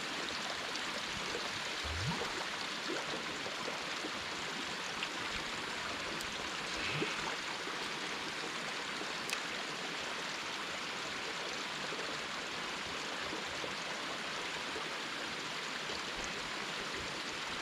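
Steady rush of running water, like a stream or inflow channel, with a few faint light taps.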